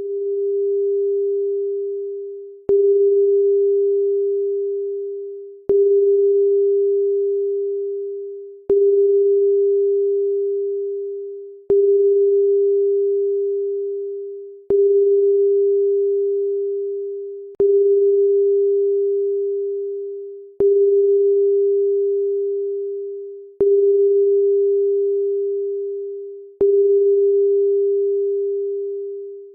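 Electronic pure tone, steady in pitch, struck anew with a click about every three seconds and fading away after each start, about ten times over.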